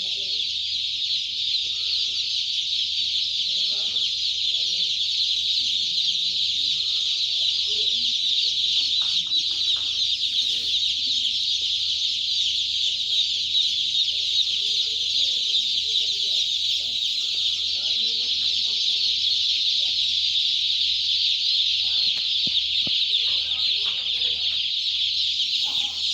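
A large flock of broiler chicks peeping all at once: a dense, steady, high-pitched chorus with a faint low hum underneath.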